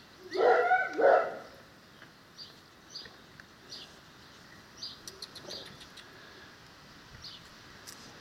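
A Cane Corso gives two short, loud whining yelps about half a second in, then quiets. Small birds chirp faintly in the background through the rest.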